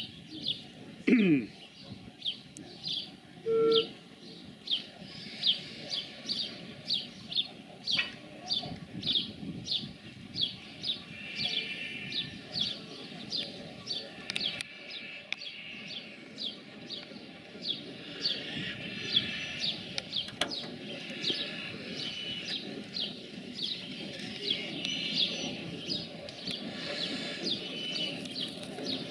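A small bird chirping over and over, short high falling chirps about two a second, over a low, steady background rumble. A louder falling sound about a second in, and a brief low tone just before four seconds in, break through it.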